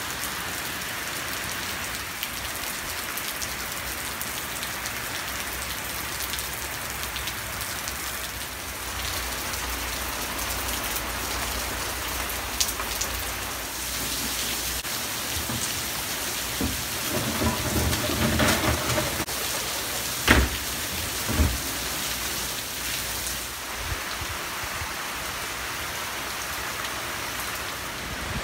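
Heavy hurricane rain pouring down steadily, with a few sharp knocks about two-thirds of the way through.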